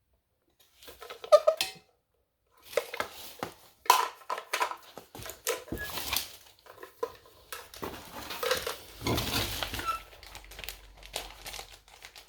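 Sewing machine foot pedals being handled and sorted: hard pedal casings clattering and knocking together, with plastic bag rustling. The irregular knocks start about a second in, pause briefly, then run on densely.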